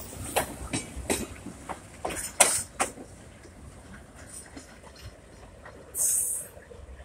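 Passenger coach wheels clicking and knocking over the rail joints as the tail of a New York & Lake Erie train rolls past and moves away, the clicks thinning out after about three seconds over a low rumble. A short hiss about six seconds in.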